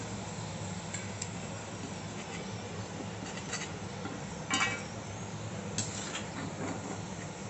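Steel spatula clinking and scraping against an iron kadai and a steel plate as fried prawns are lifted out of hot oil, with a few sharp clinks, the loudest about four and a half seconds in, over a steady low hiss.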